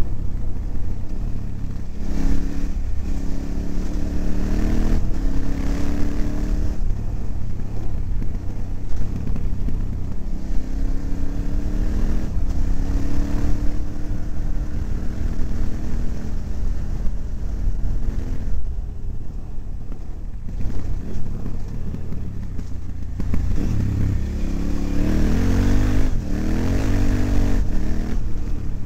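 KTM 950's V-twin engine pulling along a dirt trail, its revs climbing and dropping again and again with throttle and gear changes, easing off briefly about two-thirds of the way through.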